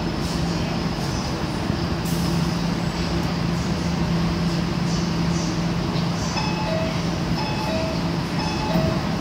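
Guangzhou Metro Line 1 train standing at a station platform: a steady low hum over the station's noise. From about six seconds in, rapid beeps alternating between two pitches, typical of a metro door warning signal, take over as the hum fades.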